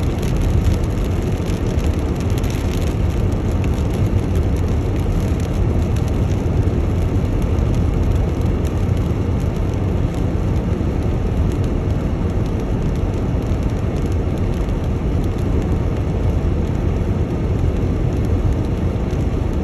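Road noise inside a moving car on a wet road: a steady low rumble of the tyres with the hiss of wet pavement.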